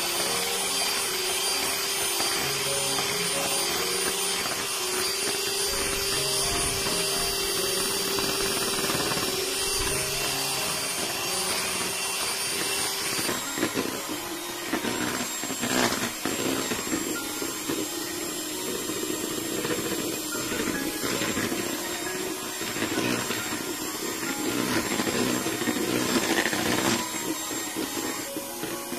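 Electric hand mixer running steadily with its wire beaters whisking egg whites in a plastic bowl, a motor whine. About halfway through the whine changes pitch, and it runs rougher with scattered clicks.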